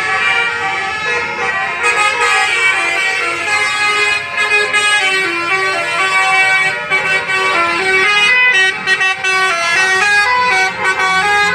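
Basuri telolet bus horn playing a fast melody: several horn tones sounding together in chords and stepping quickly from note to note.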